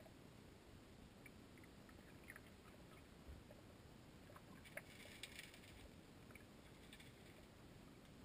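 Near silence: faint muffled creek water heard underwater, with scattered small ticks and a brief hiss about five seconds in.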